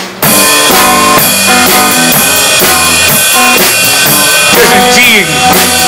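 Live country band kicking in together right after a count-in: electric guitars, electric bass and drum kit playing with a steady beat.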